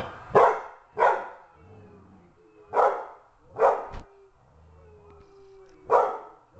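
Catahoula Leopard Dog barking in alarm at a snowman candle holder: five sharp barks, in two quick pairs and then a single one near the end.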